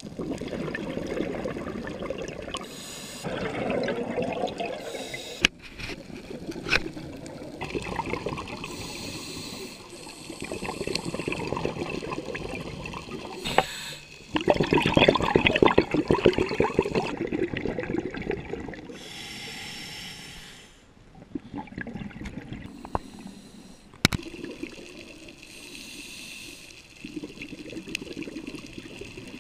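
Scuba diver's regulator breathing heard underwater. Long gurgling runs of exhaled bubbles alternate with shorter hissing inhalations, with a few sharp clicks.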